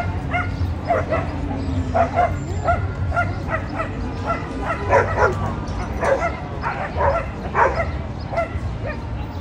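St. Bernard whining in a run of short, high-pitched cries, two to three a second, stopping shortly before the end, over a steady low hum.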